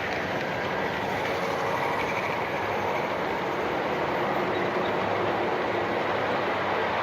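G-scale garden model train running steadily along its track, a continuous noise of wheels on the rails and the loco's motor.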